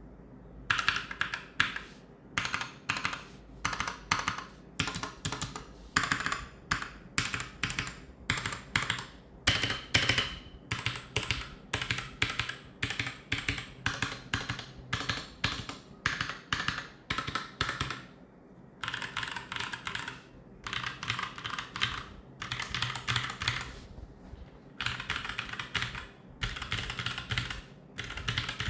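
Royal Kludge RK837/RK68 mechanical keyboard with stock RK/TTC Brown tactile switches. Modifier keys are pressed one at a time, several a second. After a short pause about two-thirds of the way in, the keys are swept row by row in quick runs, each lasting a second or two.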